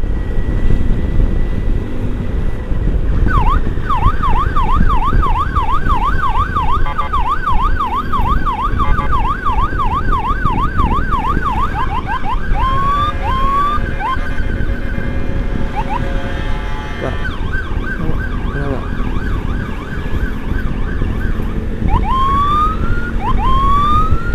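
Electronic emergency siren sounding a fast up-and-down yelp for several seconds, then switching to single rising whoops and a held tone, over a steady rumble of motorcycle engine and wind.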